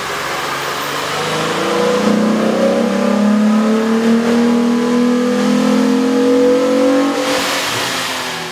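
Jeep Wrangler 3.8-liter V6 fitted with a K&N performance air intake, run under load on a chassis dynamometer. The engine note climbs steadily in pitch from about two seconds in, then drops off near the end.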